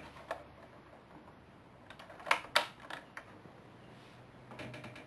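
A few sharp clicks and knocks from handling a disposable camera while its flash is being charged, the two loudest about a quarter of a second apart a little over two seconds in, with a faint steady low hum under them.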